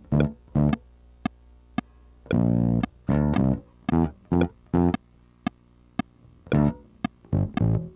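Music: bass and guitar playing short, clipped notes with gaps between them, over a sharp click that keeps time about twice a second.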